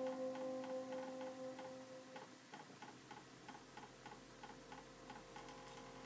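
Arduino-driven pen-drawing machine running: faint regular ticking about four times a second, with a steady hum of several pitches that stops about two seconds in.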